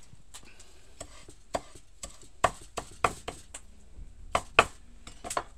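A knife chopping fresh parsley on a cutting board: about a dozen sharp, irregular knocks, loudest in the middle.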